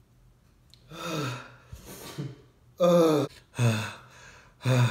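A man gasping and groaning in pain from the burn of 2x-spicy fire noodles: a falling moan about a second in, then three short, loud pained cries near the end.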